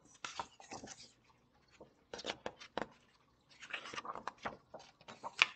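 Paper pages of a hardcover picture book rustling and tapping as the open book is handled and tilted, in irregular short clicks and brief rustles, with one sharper click near the end.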